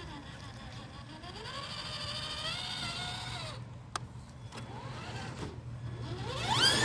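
RC crawler's electric drive motor and geartrain whining, its pitch rising and falling as the throttle is worked. There is a sharp click a little before four seconds in, and near the end the whine climbs and gets louder.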